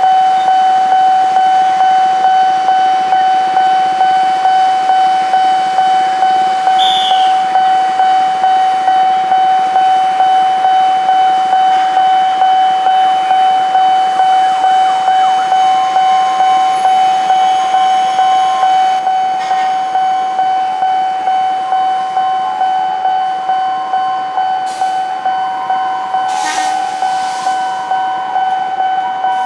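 Railway level-crossing warning signal: a single high electronic tone sounding steadily and pulsing in a regular rhythm, warning that a train is approaching.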